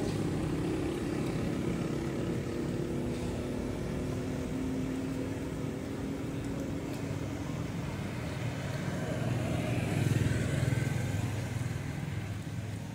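Road traffic: engines of motor vehicles passing on the road, a steady engine hum at first, then one vehicle passing louder, swelling and fading about ten seconds in.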